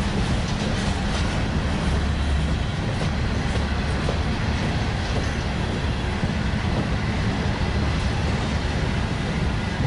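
Freight train of covered hopper cars rolling past: a steady low rumble of steel wheels on rail, with occasional faint clicks as wheels cross rail joints.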